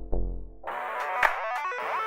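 Instrumental background music: a held synthesizer chord over a heavy bass gives way, about half a second in, to a brighter plucked melody that steps up and down.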